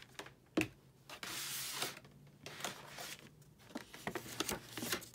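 Stiff cardstock paper petals rustling and sliding as they are handled, with a sharp knock about half a second in and a string of small clicks and crinkles later on.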